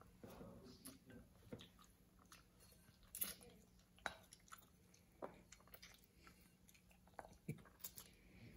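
Faint sounds of a child eating noodles: chewing, with a few light clicks of wooden chopsticks against a glass bowl, about one a second.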